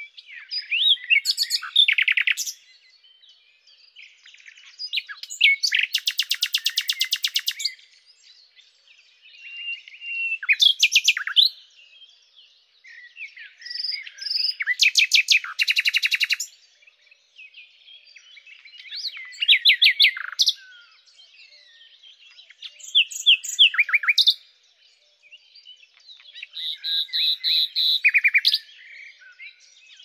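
Common nightingale singing: about seven varied song phrases of two to three seconds each, separated by short pauses, several of them fast runs of rapidly repeated notes.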